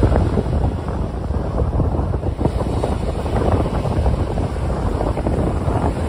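Small waves breaking and washing up a sandy beach, with heavy wind buffeting the microphone as a steady low rumble.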